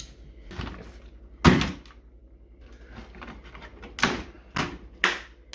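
Sharp knocks and snapping clacks of computer parts being pried and ripped off with pliers. One loud knock comes about one and a half seconds in, then three quick cracks near the end.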